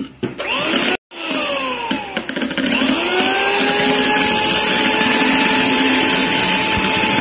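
Electric hand mixer whirring as its beaters whisk cake batter in a metal pot. Its pitch falls and then rises over the first few seconds, with a brief break about a second in, then it runs steadily.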